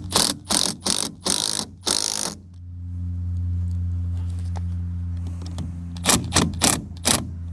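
Milwaukee cordless impact driver run in short trigger bursts, tightening hose-clamp screws: about six quick bursts in the first two seconds, then four more near the end. A steady low hum lies underneath throughout.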